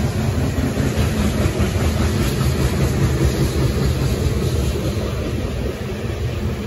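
Loaded coal cars of a freight train rolling past on the rails: a steady low rumble of wheels on track.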